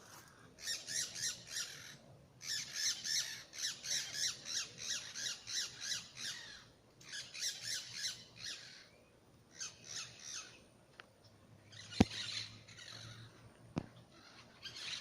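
Birds giving harsh, squawking calls in rapid runs of about five notes a second, in bouts broken by short pauses. A single sharp click about twelve seconds in is the loudest sound.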